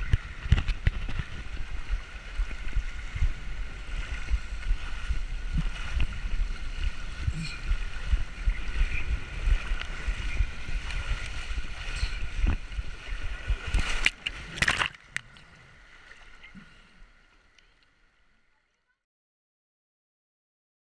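Water rushing down a waterslide under a sliding rider, heard from a camera riding with the body, a dense rumbling wash. About fourteen seconds in there is a short loud burst, after which the sound fades away to silence for the last few seconds.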